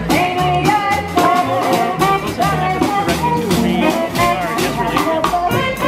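Live jazz street band playing an upbeat tune on upright bass, saxophone and snare drum, with a steady beat.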